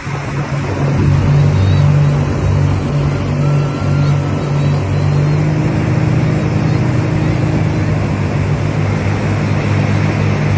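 Motorboat engine running steadily in a low drone, with rushing wind and water noise.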